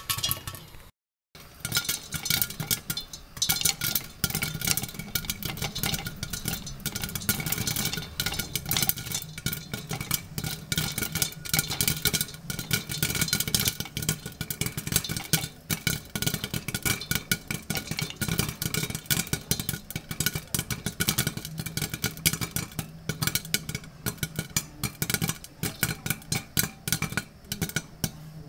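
Popcorn popping in hot oil in a lidded pot: a dense, rapid crackle of pops over a steady sizzle, thinning to scattered pops near the end as the kernels finish popping.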